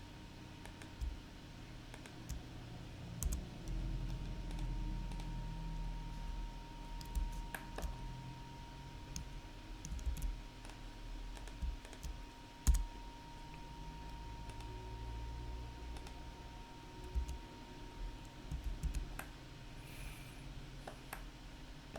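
Scattered clicks of a computer keyboard and mouse at irregular intervals, with one louder click about halfway through, over a low room rumble.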